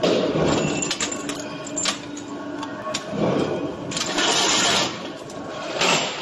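Chain-link welding machine crackling and sizzling in several loud bursts as it welds a steel link and sparks fly, with sharp metallic clicks and clanks of heavy steel chain in between.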